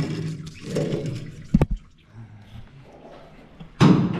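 Work noise at the front of a tractor engine during a water pump change: a low rumbling at first, a sharp metal knock about a second and a half in, and a louder thump near the end.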